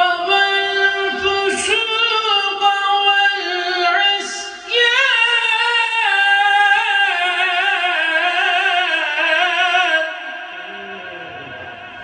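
A man reciting a Quran passage (aşır) in the melodic, chanted style, amplified through a microphone. He sings long held notes and a quickly wavering, ornamented run, and the phrase ends about ten seconds in.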